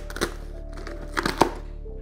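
Background music, over which a cardboard shipping box is slit open along its packing tape and its flaps are pulled back, making a few sharp cardboard clicks and knocks, the loudest about a second and a half in.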